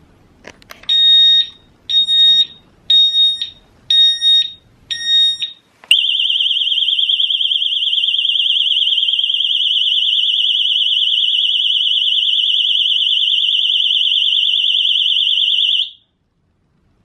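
Alarmed motorcycle disc brake lock set off by the bike being touched. It gives five short high-pitched warning beeps about a second apart, then a very loud, steady, warbling alarm tone for about ten seconds that cuts off suddenly.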